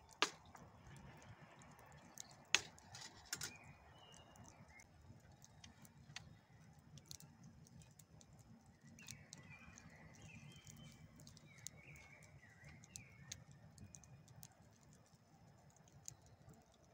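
Wooden sticks knocking and being handled by hand. A few sharp knocks come in the first three or four seconds, then fainter scattered clicks. Small birds chirp briefly in the background.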